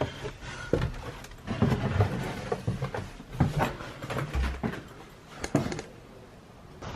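Footsteps and scuffs going down a narrow staircase: irregular knocks and scrapes with rustling between them.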